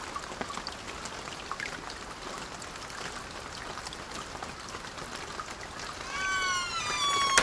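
Water trickling and splashing steadily from a stone garden fountain. Near the end, a louder, high, drawn-out call that falls slightly in pitch rises over the water.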